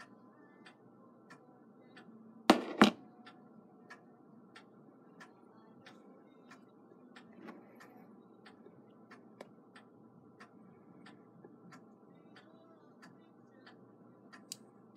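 A clock ticking steadily, about one and a half ticks a second, with two loud knocks close together about two and a half seconds in.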